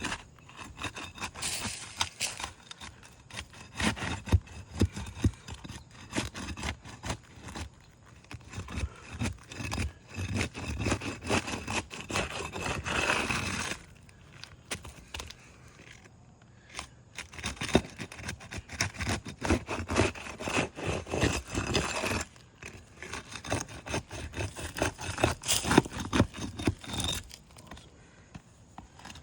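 Steel roofing flat bar being worked under asphalt shingles, breaking their sealant strips: repeated scraping and crackling strokes, with short pauses about halfway through and again a little later. The tearing of the seal and the transfer of sealant and granules can be heard, which is part of the test of whether the shingles can be repaired.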